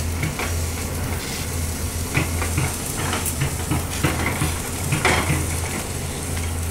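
Sany excavator's diesel engine running at a steady low idle, with scattered metallic clinks and scrapes over it, the loudest about five seconds in.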